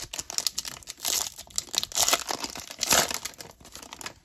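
Foil wrapper of a Topps Finest trading-card pack crinkling and tearing as it is pulled open by hand, a dense run of crackles.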